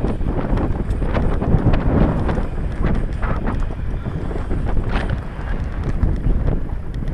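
Wind buffeting an action camera's microphone, with a mountain bike clattering and rattling over rough dirt trail: a steady rumble broken by many quick knocks and clicks.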